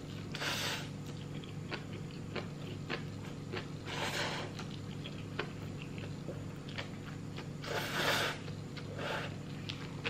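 A person eating instant cup noodles: three short slurps about four seconds apart, with chewing and small clicks from the fork in between, over a steady low hum.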